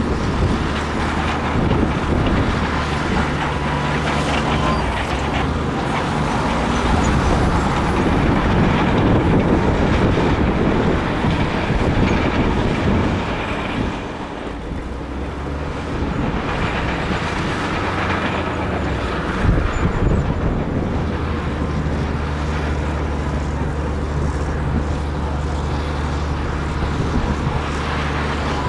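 Large bulldozer's diesel engine running under load with a steady low drone, easing off about halfway through and building up again.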